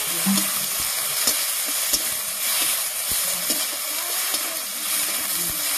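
Sliced onions sizzling in hot oil in a metal kadai while a long metal spatula stirs and scrapes the pan, knocking against it about once a second.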